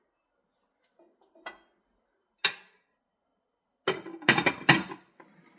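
Cutlery and dishes clinking and knocking: two separate knocks, then a quick run of louder clatter near the end.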